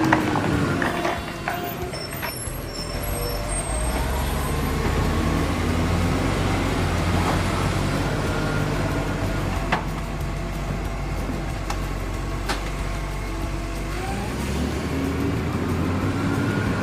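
Toy tow truck playing a truck-engine sound effect: a steady, loud low rumble with a few rising and falling tones and occasional clicks.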